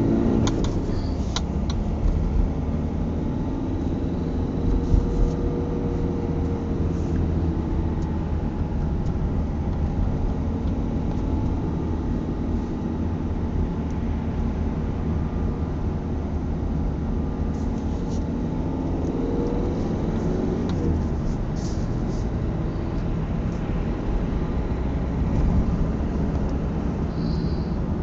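A car driving, heard from inside the cabin: steady engine and road rumble, with the engine pitch rising and falling a few times as the car speeds up and eases off, and a few light clicks.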